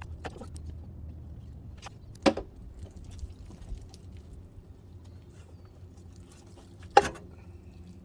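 Two sharp knocks about five seconds apart, with a few faint ticks, over a low steady hum.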